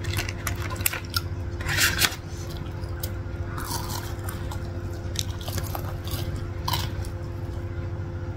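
Crunchy bites into deep-fried corn dogs with potato-cube and cornflake coatings, then chewing close to the microphone. The sharpest crunches come about two seconds in.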